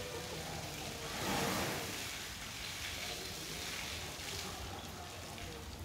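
Hose water spilling from an elephant's mouth and splashing steadily onto a wet concrete floor, swelling briefly about a second and a half in.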